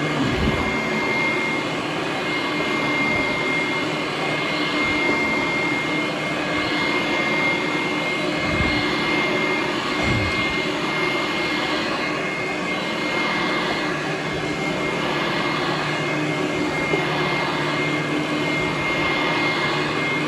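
Hoover Conquest upright vacuum cleaner running on carpet, a loud, steady noisy rush with a constant high whine, pulling hard on the carpet as it is pushed back and forth.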